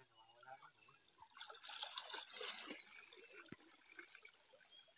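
Shallow stream water splashing, sloshing and trickling around a person wading knee-deep, in an irregular run of small splashes that is busiest in the middle, over a steady high insect buzz.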